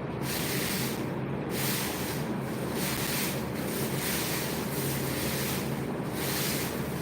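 A steady motor hum with a hissing water spray over it, the hiss swelling and fading about once a second, typical of a pressure washer washing down a poultry shed.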